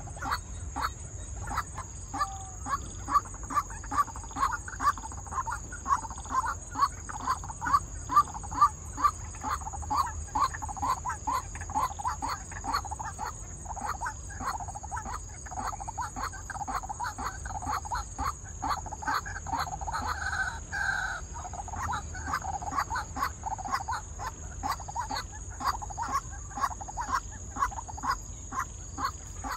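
White-breasted waterhen calling: a long run of harsh repeated notes, about two a second, with no let-up.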